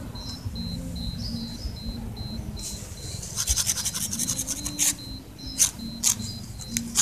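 A thin stick scraping and tapping on a concrete step as a cat bats at it. About three seconds in comes a quick run of short scratches, about eight a second, followed by a few single sharp taps.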